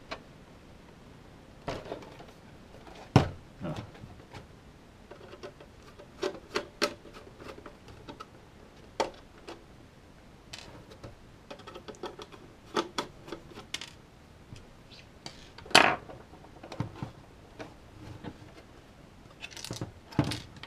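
Plastic casing of a mini dehumidifier being handled and prised apart: scattered clicks, taps and creaks of hard plastic, with a couple of sharper knocks about three seconds in and again near the sixteen-second mark.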